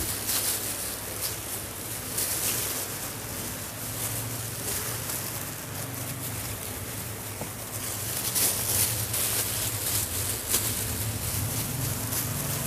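Disposable plastic gloves crinkling and rustling as hands wrap mochi dough around balls of filling, in irregular patches over a steady low hum.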